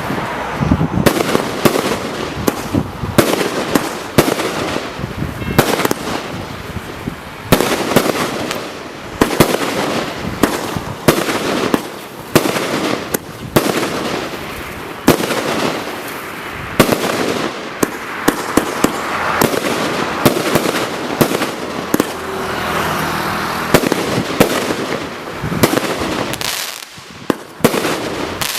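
Total FX 'Rogue' firework going off: a long run of sharp bangs fired in quick succession, with crackling between the reports.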